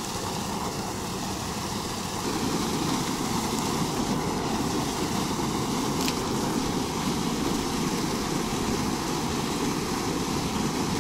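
Water spilling over a low concrete weir into a creek pool: a steady rush of falling water, louder from about two seconds in.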